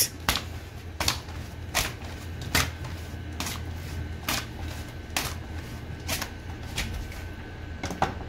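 Thin sheet of maida parotta dough being swung and slapped down onto a marble countertop to stretch it, one slap about every 0.8 seconds.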